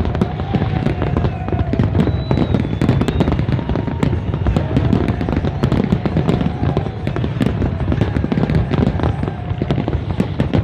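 Fireworks display: a dense, continuous barrage of bangs and crackles with a deep rumble underneath.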